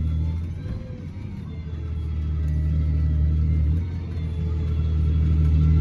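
Heavy diesel farm-machinery engine running with a deep steady drone, easing off briefly about a second in and again near four seconds, then building back up under load.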